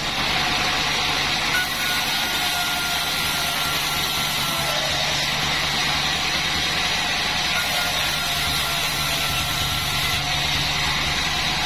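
A 36-inch band sawmill running steadily, its motor humming under the continuous hiss and whine of the band blade.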